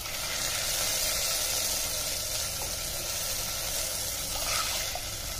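Tamarind water ladled into a hot clay pot over oil and fried spices: a steady hiss of liquid pouring and sizzling against the hot pot.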